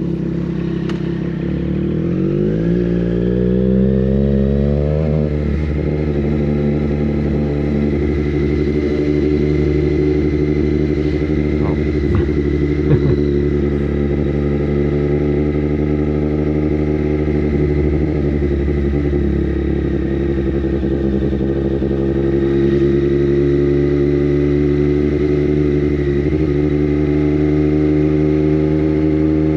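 Triumph Street Triple 765 RS three-cylinder engine through an aftermarket Racefit Growler full exhaust, revs rising for a few seconds as the bike picks up speed, then cruising at steady revs.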